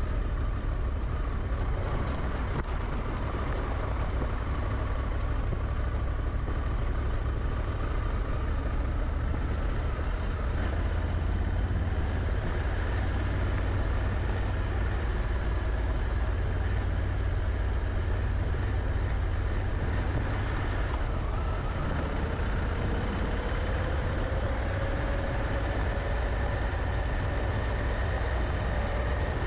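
Honda Africa Twin's twin-cylinder engine running steadily on the move, a deep low drone over an even rush of wind and tyre noise. In the last several seconds the engine note climbs slowly as the bike picks up speed.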